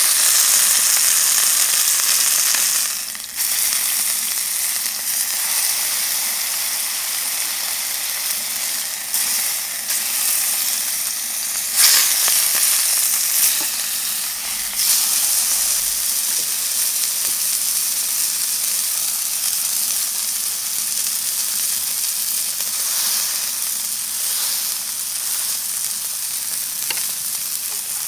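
Beef steak searing in a hot pan: a steady sizzle with occasional sharp spits and crackles, the loudest about 12 seconds in.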